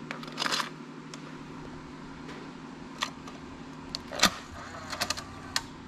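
Sharp plastic clicks and clacks of a cassette being handled and loaded into a vintage Alpine pull-out car cassette deck and its buttons pressed, the loudest clack a little past four seconds in. A steady low hum runs underneath.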